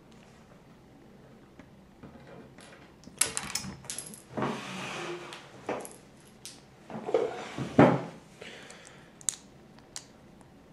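Plastic LEGO bricks clattering and clicking as they are handled and sorted through, in irregular bursts, with the loudest clatter about seven to eight seconds in.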